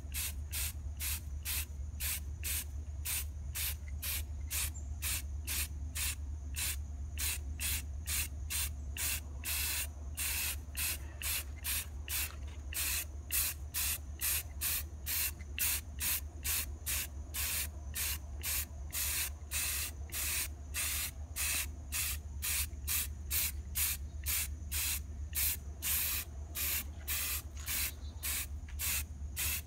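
Aerosol can of gloss enamel spray paint hissing in short bursts, about two a second, as black paint is sprayed onto a plastic car bumper in quick passes. A steady low hum runs underneath.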